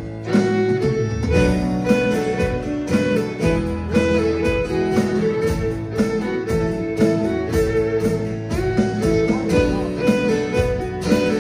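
Live band playing an instrumental passage with no singing: fiddle and guitar carry the melody over a steady beat on an electronic drum kit.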